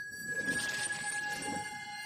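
Ambient electronic intro: two steady high tones held over a soft low rumble that swells about once a second.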